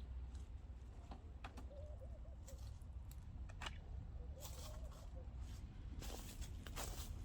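Quiet background: a steady low rumble with scattered light clicks and a few faint wavering chirps, and a short rustle near the end.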